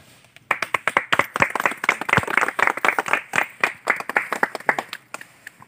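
A small group of people clapping, starting about half a second in and dying away near the end.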